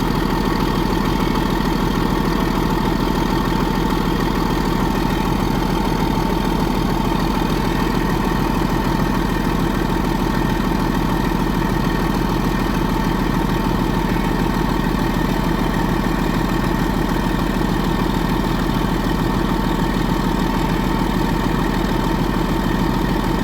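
Diesel engine idling steadily at an even pitch and level.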